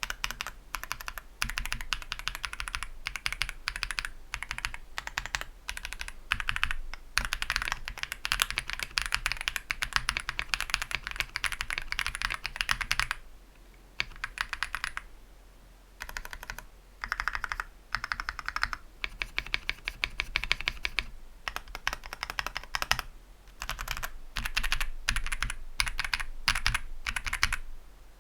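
Typing on a stock YUNZII AL71 mechanical keyboard: fast runs of key clicks in bursts, with brief pauses around 13, 15 and 23 seconds in.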